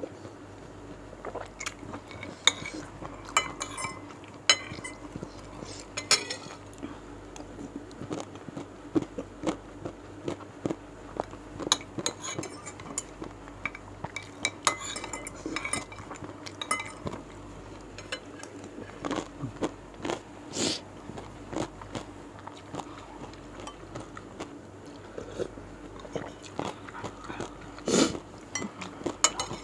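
Metal spoon and fork clinking and scraping against a ceramic plate and soup bowl, many short sharp clinks scattered through, with close-miked chewing between them.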